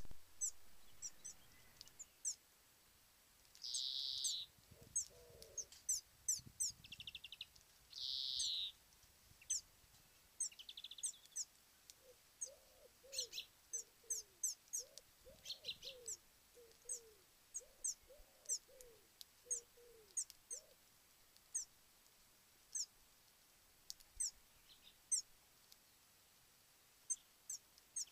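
Wild birds calling: many short, high, falling chirps all through, two longer harsh, buzzy calls about four and eight seconds in, and a run of low, short hooting notes from about twelve to twenty-one seconds.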